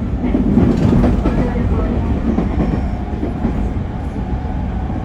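Train running, heard from inside the passenger car: a steady low rumble of the moving carriage.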